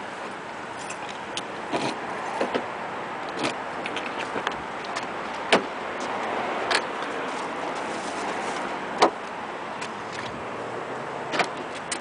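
Metal shopping cart rolling over parking-lot asphalt: a steady rattling rumble with scattered clicks and knocks, the loudest about nine seconds in.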